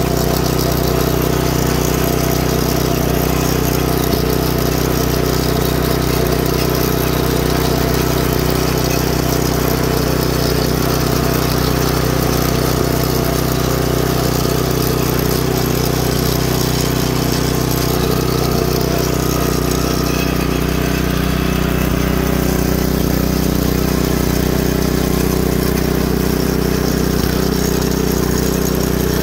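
A Yard Machines 5 hp rototiller engine running steadily at an even speed while the tiller's tines churn through garden soil.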